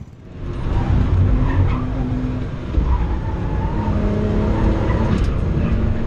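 BMW 325's engine running hard on track, with heavy tyre and road noise, and a brief break in the engine note about three seconds in.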